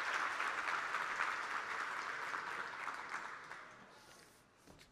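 Audience applauding; the clapping fades away about three to four seconds in.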